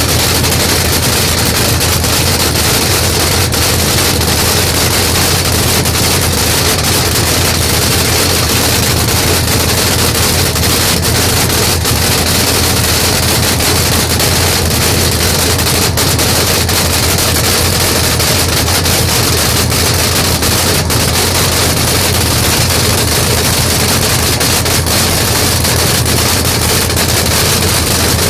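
Chevy Vega funny car's V8 engine running loud and steady at idle, with a dense rapid crackle from the open exhaust and no revving.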